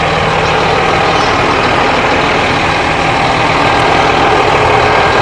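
Scania P440 fire truck's 13-litre inline-six diesel engine idling steadily.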